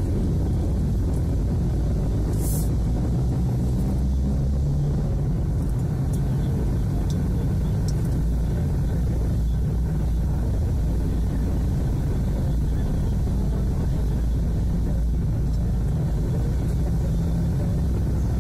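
Steady low rumble of engine and road noise heard inside a car's cabin while it crawls in traffic behind a bus, with a brief hiss about two and a half seconds in.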